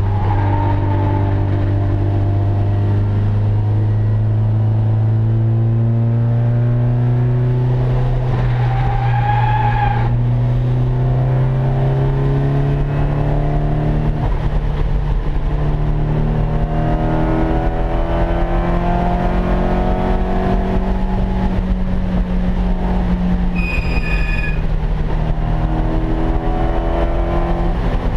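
Turbocharged SR20DET four-cylinder of a Nissan 240SX race car heard from inside the stripped cabin, pulling under load with its pitch climbing slowly and steadily for about twenty seconds. About three-quarters of the way through the pitch drops, with a brief high squeal at that moment.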